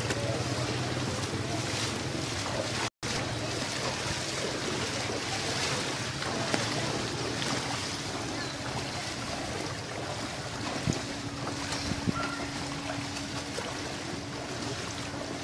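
Steady rushing noise of floodwater with wind buffeting the phone's microphone, over a faint low steady hum. The sound cuts out for an instant about three seconds in.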